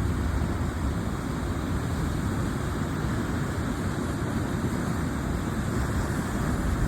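Sea waves washing on the shore with wind rumbling on the microphone: a steady rushing noise with a heavy low rumble.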